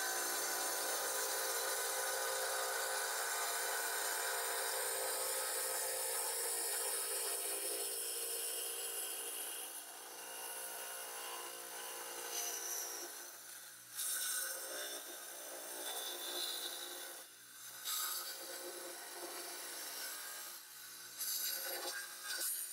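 Tile saw cutting through a small geode: a steady grinding whine over a humming motor. From about ten seconds in it turns uneven, with louder surges as the stone is pushed into the blade.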